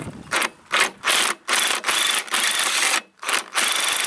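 Handheld power tool run in a series of short trigger bursts of uneven length, with a faint high whine, backing off a nut.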